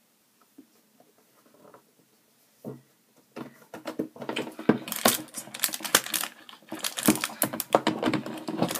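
A stethoscope's cardboard box and its packaging being handled and opened by hand. It is quiet at first with a soft knock, then from about three and a half seconds in comes a dense run of clicks, scrapes and rustles.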